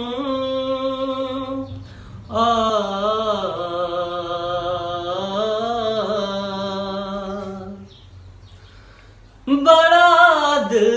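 A man sings a ghazal unaccompanied, drawing out long wordless notes with a wavering, ornamented melody. The voice drops away for about a second and a half near the end, then comes back with a loud high note.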